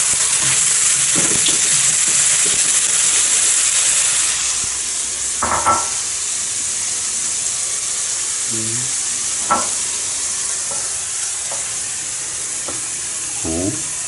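Pork pieces sizzling as they fry in garlic oil in a wok; about four and a half seconds in the sizzle drops away. After that come a few short clinks and knocks of a pot and utensils.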